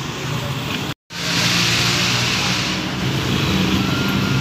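Slow, congested road traffic heard up close: motorcycle and car engines running at low speed, with a steady engine hum and a hissing rush for a couple of seconds. About a second in, the sound cuts out completely for a moment.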